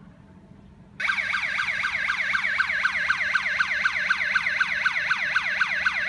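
Alarm siren of a Patrol Hawk G2 GSM alarm system starting abruptly about a second in and sounding loudly, a rapid electronic yelp that sweeps down in pitch about five times a second. It is the intrusion alarm set off by breaking the wireless IR beam detector while the system is armed.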